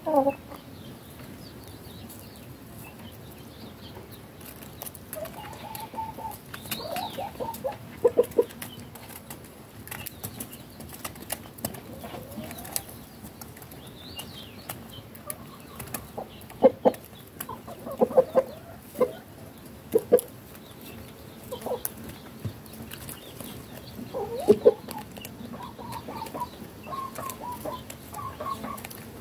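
Chickens clucking now and then, short calls in clusters, over a scatter of small sharp clicks of beaks pecking at bread crumbs on hard ground.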